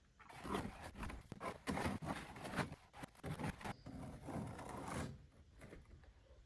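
Scraping and rustling handling noise: a run of irregular scrapes that starts about half a second in and stops about five seconds in.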